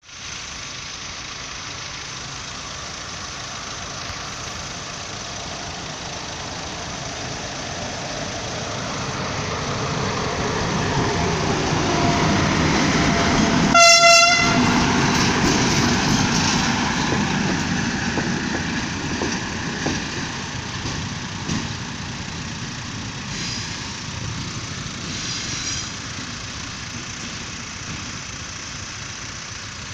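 Srbija Kargo class 444 electric locomotive approaching and passing, its running noise building for about fourteen seconds and then fading. As it passes, it gives one short blast on its horn. A few light clicks follow as it draws away.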